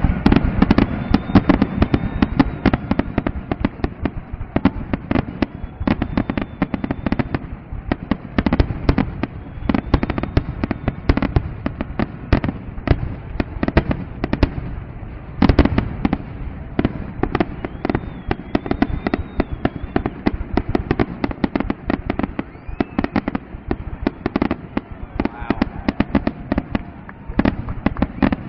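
Fireworks grand finale: a dense, continuous barrage of shell bursts and crackling bangs, many a second, without a pause.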